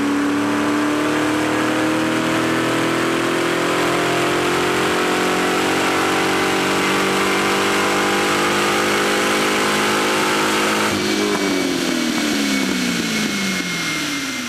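LS2 6.0-litre V8 of a Corvette with Borla exhaust running under load on a chassis dyno, its pitch climbing steadily for about eleven seconds through a dyno pull. About eleven seconds in the throttle closes abruptly and the revs fall away as the rollers slow down.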